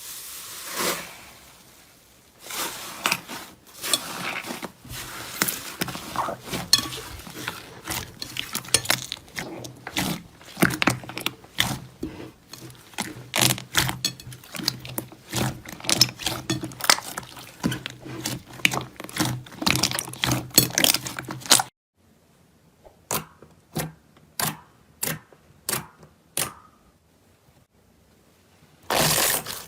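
Slime being squeezed and pressed by hand, giving a dense run of sticky clicks and pops. It cuts off suddenly about two-thirds of the way in, and a few separate pops follow.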